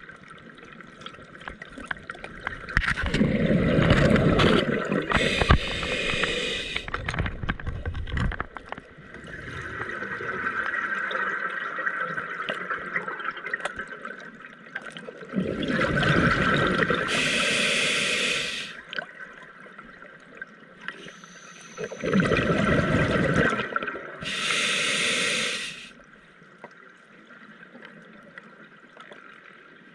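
Scuba diver breathing underwater through a regulator: three slow breath cycles, each a loud rush of exhaled bubbles together with the regulator's hiss, with quieter water noise between.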